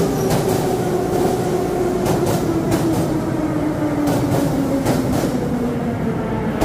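An Ezh-3 metro train pulls into the station and slows. The whine of its traction motors falls steadily in pitch as it brakes, over a running rumble, and the wheels knock repeatedly on the rail joints.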